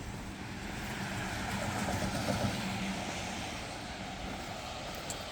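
City street traffic: a passing vehicle's low engine hum over a steady hiss that fits tyres on a wet road. It swells about two seconds in, then eases.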